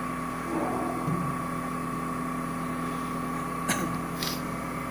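CNC TU-3A milling machine running with a steady hum and a thin whine. A sharp click comes about three and a half seconds in, then a brief hiss.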